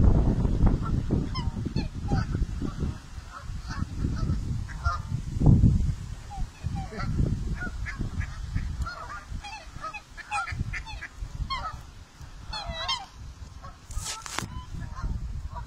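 A flock of Canada geese honking, many short overlapping calls through the whole stretch. Bouts of low rumble near the start and about five seconds in, and a brief hiss near the end.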